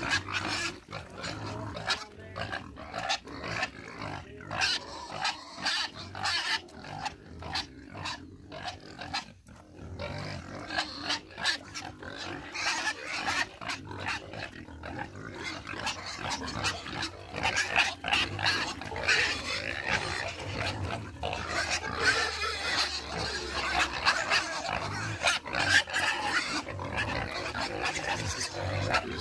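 Several pigs grunting and squealing in a muddy pen, a dense, irregular run of short calls that grows busier and louder about halfway through.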